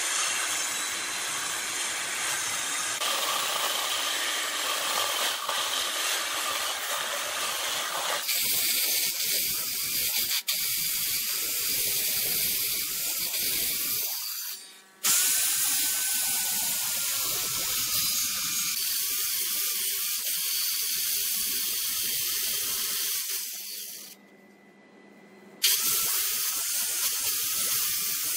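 Handheld electric circular saw cutting across the end grain of a wooden pedestal top, a steady loud hissing run. It cuts out briefly about halfway and again near the end, then starts up again abruptly.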